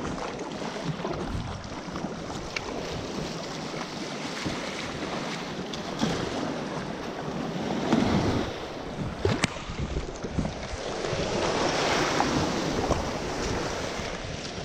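Water sloshing and splashing against a Prowler 13 sit-on-top kayak as it is paddled across the sea, with wind buffeting the microphone. A sharp click comes about nine seconds in, and the splashing swells louder a couple of seconds later.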